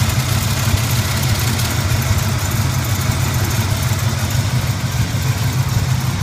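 The 1981 Turbo Trans Am's turbocharged 301 V8 idling roughly after a cold start, a steady low engine drone with an uneven, ragged beat.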